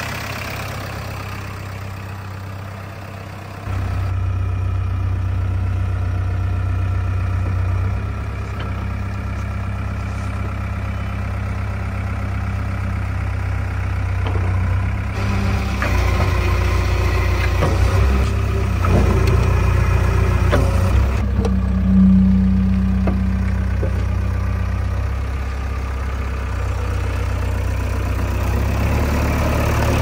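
JCB 3DX backhoe loader's diesel engine running steadily at idle just after starting, a low hum that gets louder about four seconds in. A few knocks come through in the middle.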